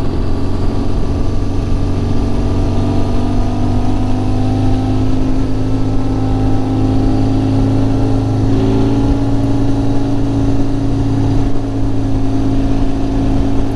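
Motorcycle engine running steadily at low speed in a low gear, its note creeping slightly higher and then easing off a little about eight and a half seconds in, over a steady rush of road and wind noise.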